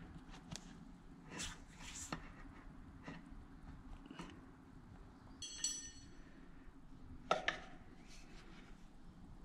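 Tyre levers working a tyre bead over a pitbike's rear wheel rim: light scrapes and clicks, a brief squeak of rubber a little past halfway, and a sharper click of a lever about seven seconds in.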